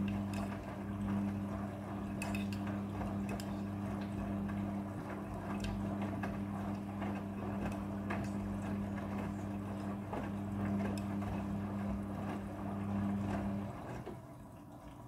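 Midea front-loading washing machine in prewash: a steady electric hum from the machine, with water noise and scattered clicks and knocks from inside the drum. The hum cuts off near the end.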